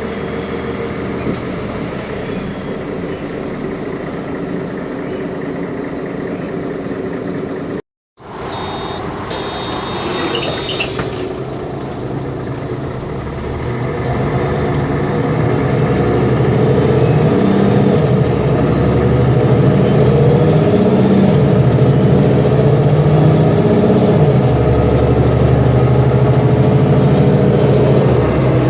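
Mercedes-Benz Conecto G articulated bus's OM457LA diesel engine running, with a brief cut in the sound about eight seconds in. From about halfway the engine grows louder and its low note shifts up and down in steps.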